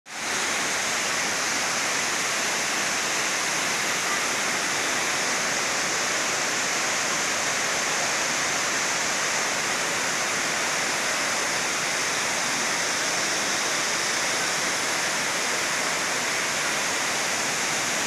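Waterfall: white water pouring down stepped rock ledges and crashing into a pool, a steady hissing rush with no change in level.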